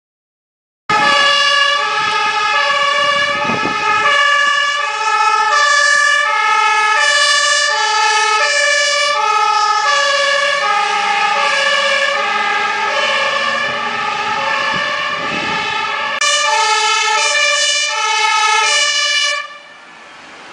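Fire engine's two-tone siren alternating between a high and a low pitch, the truck driving past on a priority-1 emergency call. It starts abruptly about a second in and cuts out near the end, leaving the quieter sound of the truck's engine.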